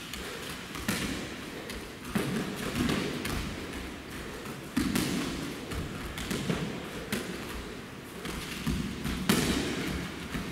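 Irregular thuds of gloved punches and kicks landing, and bare feet stepping and stamping on tatami mats during full-contact sparring, a hit every second or two with echo from the large hall.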